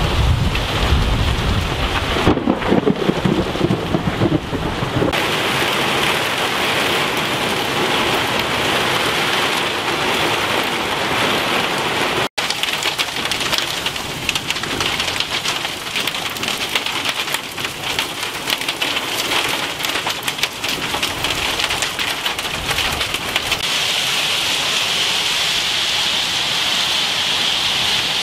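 Heavy thunderstorm rain pelting down steadily and running off a roof canopy, with a low rumble in the first few seconds. The sound cuts out for an instant about twelve seconds in.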